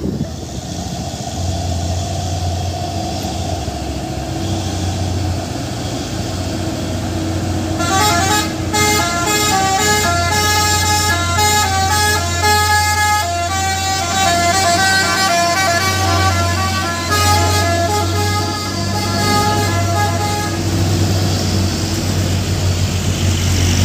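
A truck's multi-tone musical horn (telolet-style) plays a tune of stepping notes for about thirteen seconds, starting about a third of the way in. A low, steady diesel engine drone runs under it.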